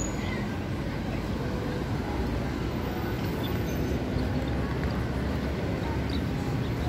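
Steady low rumble of city street traffic, even throughout with no distinct passing vehicle or other event standing out.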